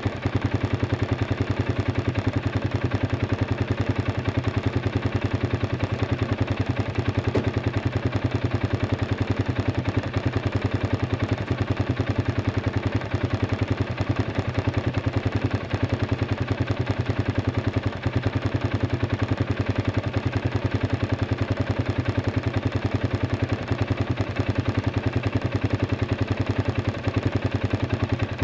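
Arctic Cat 500 ATV engine idling steadily with an even, rapid exhaust pulse, running after its battery fault has been fixed.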